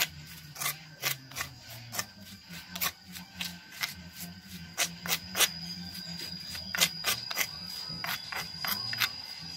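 A metal spoon clinking and scraping against a stone mortar as fried grasshoppers are stirred and tossed, a few sharp irregular clicks a second. Background music plays throughout.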